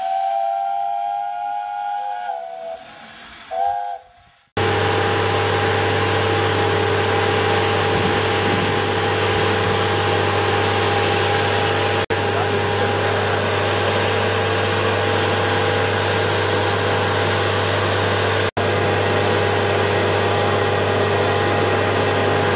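A brief intro jingle of gliding tones for about four seconds. It gives way to an aircraft ground power unit running steadily: a low hum with a steady whine over a broad hiss, with two brief dropouts.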